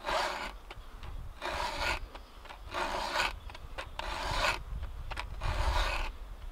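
A hand file rasping across the cutters of a Stihl chainsaw chain, sharpening it: five even strokes about a second and a half apart, each a short hiss.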